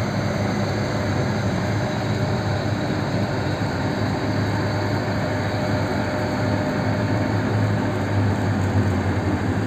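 Bizon Z140 combine harvester with a hydrostatic drive, its diesel engine and machinery running steadily with an even low hum.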